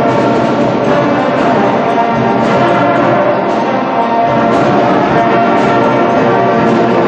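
Music playing steadily, with sustained chords throughout.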